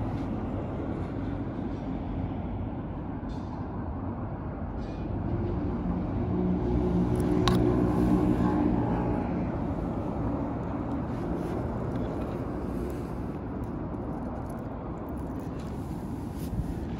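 Steady low rumble of outdoor traffic noise, with a passing motor vehicle's engine swelling and fading away in the middle. A single sharp click about halfway through.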